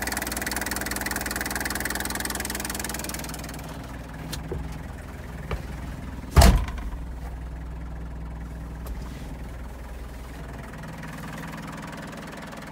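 Toyota 2L four-cylinder diesel engine idling steadily, heard close over the open engine bay at first and quieter from inside the cab after about three and a half seconds. One loud thump about halfway through, with a few lighter clicks.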